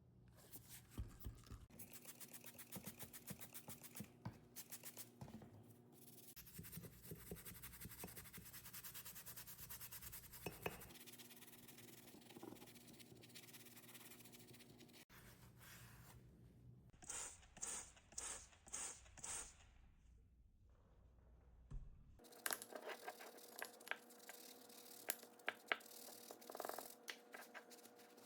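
Scraping and rubbing of hand work on metal parts, in several short cuts. About two-thirds through come five quick, short hissing strokes in a row.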